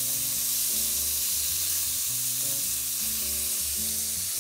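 Marinated beef shawarma strips sizzling steadily as they are tipped into a hot, oiled wok. The meat goes in one half-batch at a time so it sears rather than letting out its juices.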